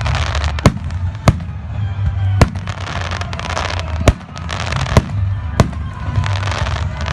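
Fireworks going off: about seven sharp bangs at irregular intervals over continuous crackling and a low rumble.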